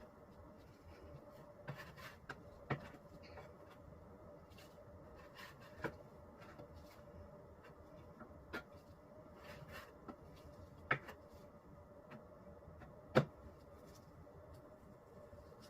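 Hand tool spreading Henry Feather Finish cement over a table top: soft scraping with scattered light taps and clicks every second or few, the sharpest near the end, over a faint steady hum.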